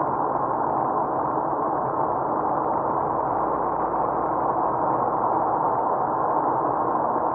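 Steady cabin noise of a car driving at speed on an asphalt highway: tyre and engine noise heard from inside the car, an even, muffled drone with no distinct events.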